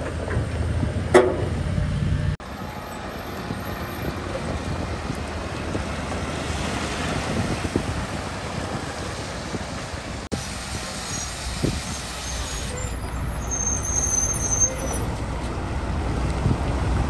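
Heavy truck hauling an excavator on a lowboy trailer, its engine and tyres rumbling steadily as it drives past. A short sharp sound falling in pitch stands out about a second in, and the sound changes abruptly twice.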